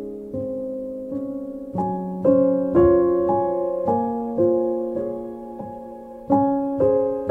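Slow, gentle piano music: single notes and chords struck one after another, each ringing and fading.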